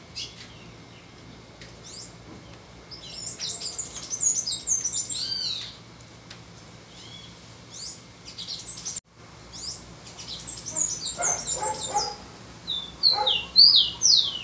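Caged rufous-collared sparrow (tico-tico) singing: several short phrases of high, down-slurring whistles with pauses between, the loudest phrase near the end. A few lower notes from another bird come about three quarters of the way through.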